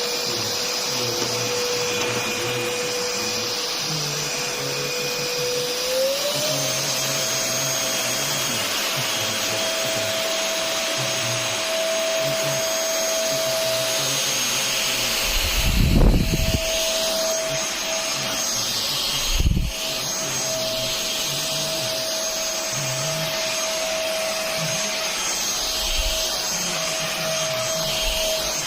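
VersLife S6PRO cordless stick vacuum running with a steady motor whine that steps up in pitch about six seconds in as the motor speeds up. Two dull thumps come in the middle.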